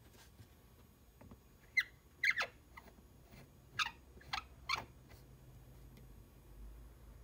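Squeaks from the wooden front knob of a Stanley No. 220 block plane being twisted down onto its stud: about six short squeaks, each falling in pitch. The squeak is the sign of a snug fit that won't come loose.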